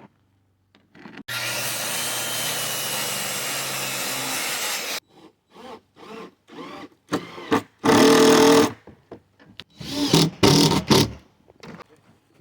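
Power tool working on wood. A steady run lasts nearly four seconds, then comes a string of short knocks and two loud bursts of the motor near the end.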